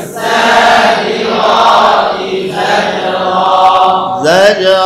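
A group of voices chanting Qur'anic Arabic together in unison, a recitation drill repeated after the teacher. Near the end a single voice slides upward in pitch into a held chanted tone.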